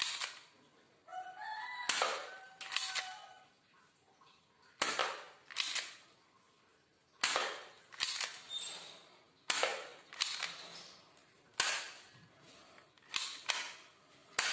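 An airsoft pistol firing about a dozen sharp snapping shots, spaced irregularly one to two seconds apart, each with a short echo off the hard walls.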